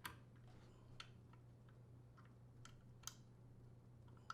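A few faint, sharp clicks and light plastic handling noises, from wire connectors being pushed onto the terminals of a replacement washer door latch, over a steady low hum.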